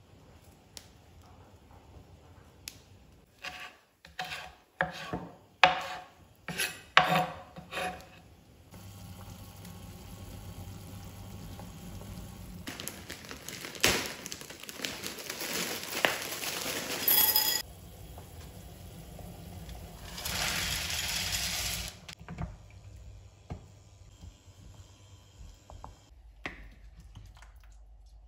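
Kitchen preparation sounds: a run of sharp knocks on a wooden chopping board, then a plastic bag of frozen peas rustled open and the peas poured rattling into a ceramic bowl on a kitchen scale, in two loud pours.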